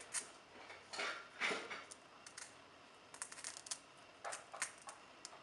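Light clicks and short scrapes of hands handling a thin bent wire and pushing it into a foam form, coming a few at a time, loudest about a second and a half in.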